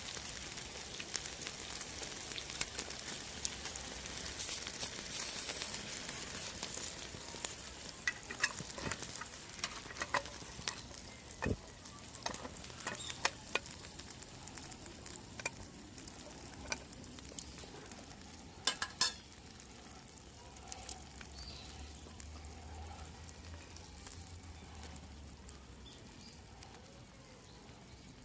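Food sizzling as it fries, with scattered sharp clicks and taps; the sizzle fades gradually.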